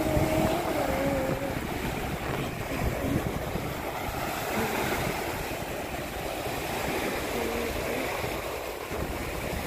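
Small sea waves breaking and washing up a sandy beach in a steady wash, with wind buffeting the microphone and adding a low rumble.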